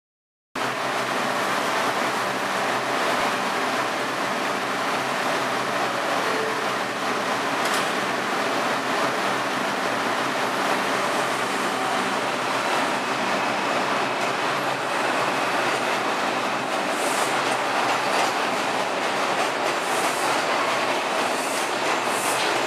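New York City Subway R142 train on the platform track, standing and then pulling out, heard as a steady loud rumble of wheels and running gear that starts suddenly about half a second in. Another train is running on the adjacent track, and a few faint high squeals come near the end.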